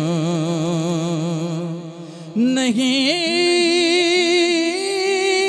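An Urdu devotional kalam sung slowly: one voice draws out a long held note with a wavering vibrato over a steady drone. Just before halfway the note fades, and a new phrase begins.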